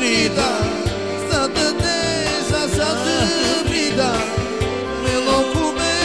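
Pop song: a singer's voice with wavering vibrato over band backing and a steady drum beat.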